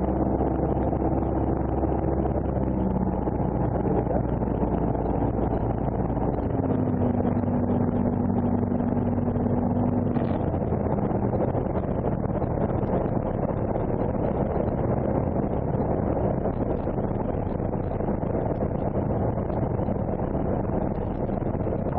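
Single-engine propeller aircraft's engine and propeller droning steadily in the cockpit, mixed with the rush of airflow on final approach. The engine note shifts about six and a half seconds in.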